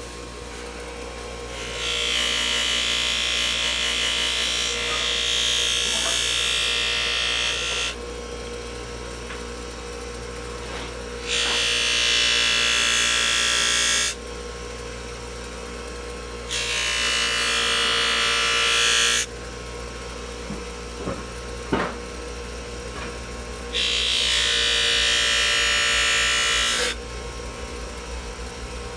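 A buffing wheel's electric motor runs steadily. Four times, for about three seconds each, a loud hiss rises over it as the freshly ground steel knife blade is pressed against the wheel to buff it.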